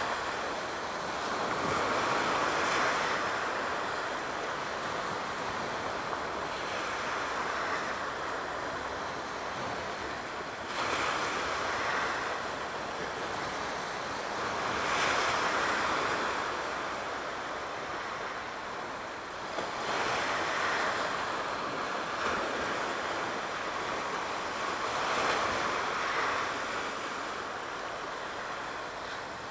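Aegean Sea surf, the waves breaking in swells about every four to five seconds.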